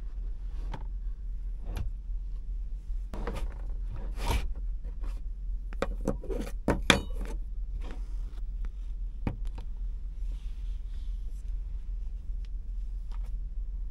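Clicks, knocks and light clatter of things being handled and set down in a small room, bunched between about three and seven seconds in with a sharp click near seven seconds, over a steady low hum.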